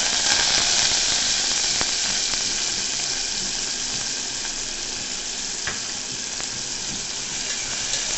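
Chopped onions sizzling in hot oil in a pressure cooker, with a spoon stirring them and clicking against the pot a few times. The sizzle is loudest in the first second, as the onions hit the oil, and eases slightly after.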